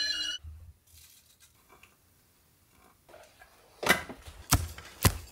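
A whistling stovetop kettle's steady, high whistle cuts off abruptly in the first half-second. After a quiet stretch, a handful of sharp clicks and knocks come about half a second apart near the end, as a glass pour-over coffee brewer and cup are handled on a wooden counter.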